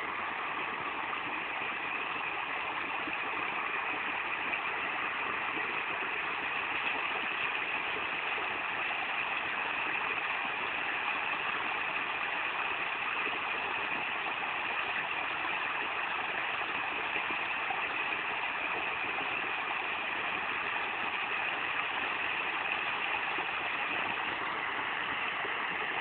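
Steady rushing of a flowing stream, an even hiss that holds without a break.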